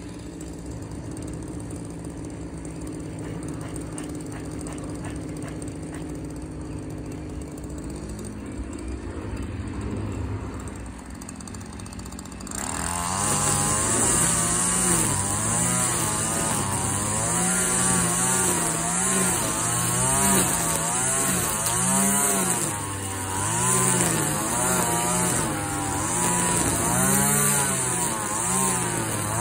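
Stihl gas string trimmer engine running steadily at low speed, then throttled up about halfway through. Its revs then rise and fall again and again, with a high whirring hiss as the line cuts through tall grass.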